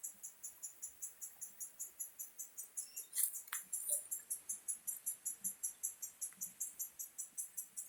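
Rhythmic high-pitched insect chirping, about five pulses a second and steady throughout. A few short bird-like chirps come in about three to four seconds in.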